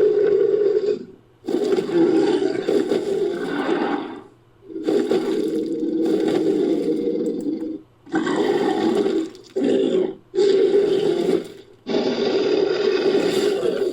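Designed creature sound effects of a Concavenator: a series of about seven roars, each lasting from under a second to about three seconds, with short breaks between them.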